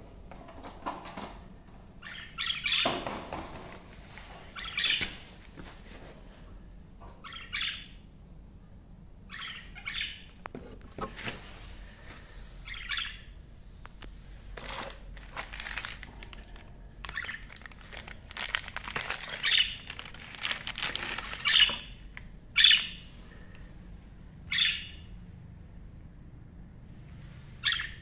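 Pet budgerigars chirping and squawking in short calls every second or two, with some clicking and rattling at their wire cages.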